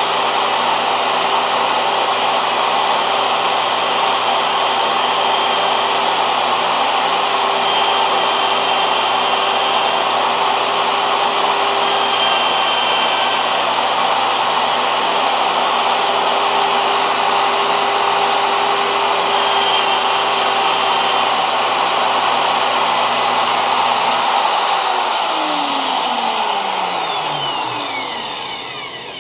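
Electric router in a pivoting sled running at full speed and cutting a curved profile into a spinning sanding drum turned by a Shopsmith: a steady high whine with the bit's cutting noise. About 25 seconds in the power is switched off and the whine falls in pitch as the motor spins down.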